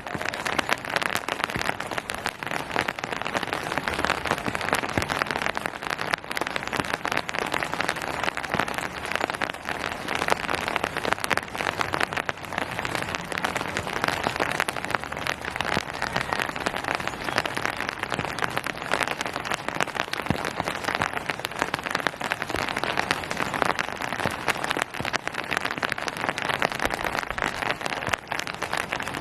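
Steady rain falling on surfaces: a dense, even patter of countless drops with no let-up.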